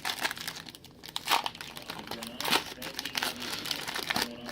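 Foil wrapper of a trading card pack crinkling and being torn open in a series of short rustling bursts, loudest about a second and a half in and again about two and a half seconds in.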